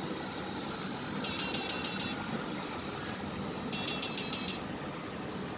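1000 W digital electric shock-fishing inverter running under load: a high buzz comes on twice for under a second, about two and a half seconds apart, over a steady hum and faint high whine.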